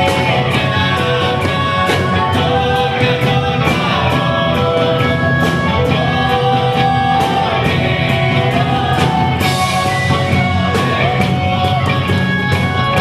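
Rock music from a band: electric guitar and drum kit with cymbals, with a singing voice, playing continuously. A louder cymbal crash comes about nine and a half seconds in.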